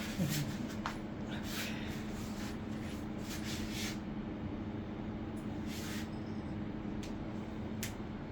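Steady low background hum, with a few short, soft hiss-like noises now and then.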